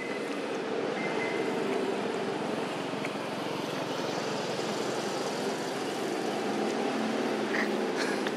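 A motor vehicle engine running steadily, a constant low drone with a few faint clicks near the end.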